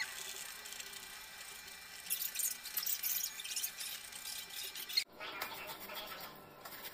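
A carrot being grated on a round steel hand grater: repeated scratchy rasping strokes of the carrot across the metal teeth. The sound cuts off abruptly about five seconds in, then starts again.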